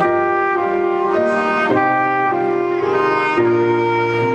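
Saxophone playing a slow melody of held notes over a backing accompaniment with a low bass line.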